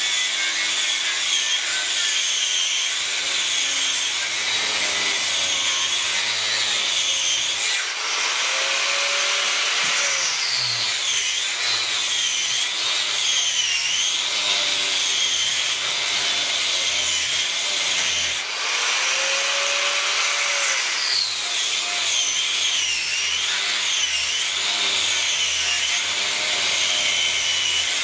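Electric angle grinder with a cut-off wheel cutting through the copper windings of an electric motor stator, running with a steady high whine. Twice, about a third and two-thirds of the way in, the whine suddenly rises in pitch, then wavers and dips as the wheel bites into the metal again.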